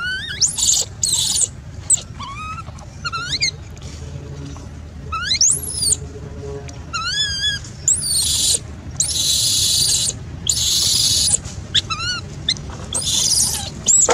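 Baby macaque crying: a string of high, thin calls that rise and waver, broken by several longer harsh screams in the second half.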